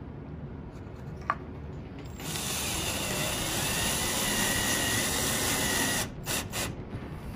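Power drill driving a small wood screw through a motherboard mounting hole straight into the wooden base without a pilot hole. The motor runs with a steady whine for about four seconds, stops, then gives a few short bursts.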